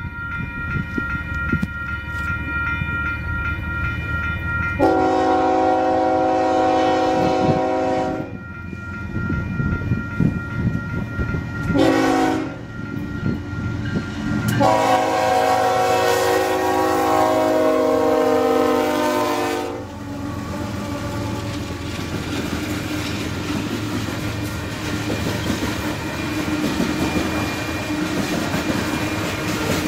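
Union Pacific freight locomotive's air horn sounding a chord in a long blast, a short one and another long blast as the train nears a grade crossing. Afterwards the freight cars rumble and clatter past on the rails.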